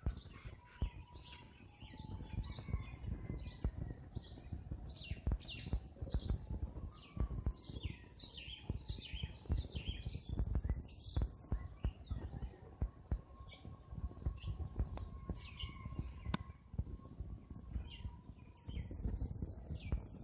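Birds chirping over and over in quick, short calls at a spot where a flock of pigeons is feeding on scattered rice. A dense patter of soft, low knocks runs underneath throughout.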